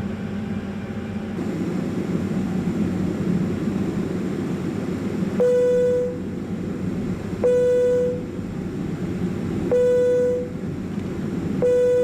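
Steady low cabin hum of a Boeing 767-300 on the ground before takeoff. From about five seconds in, four short buzzing tones sound about two seconds apart, each louder than the hum.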